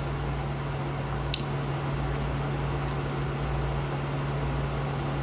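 Steady mechanical hum with a low tone under an even hiss, typical of a fan or air conditioning running in a small room, with one faint click about a second in.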